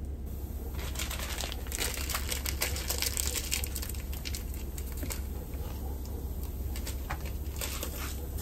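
Rice toasting in hot oil in a stainless skillet, crackling irregularly, with the clicks thickest in the first few seconds and picking up again near the end as a spoon stirs it.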